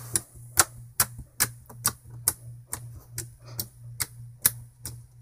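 Clear blue glitter slime being poked and pressed by hand, giving sharp clicking pops about two or three times a second as the fingers push into it.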